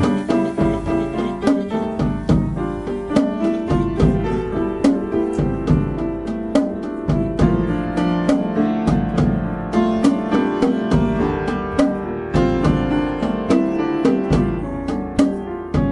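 Upright piano playing bossa nova jazz with a drum kit keeping time: runs of piano notes over a low left-hand bass line, with short, evenly spaced cymbal and drum strokes.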